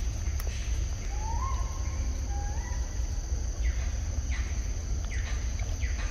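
Outdoor ambience of a steady high insect drone over a low rumble, with a bird giving two short rising whistles, about a second in and again a second later.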